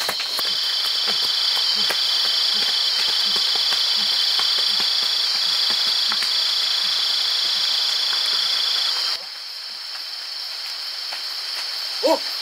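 Insects chirring in one steady, high-pitched drone over a soft crackling hiss. It drops suddenly to a quieter level about nine seconds in.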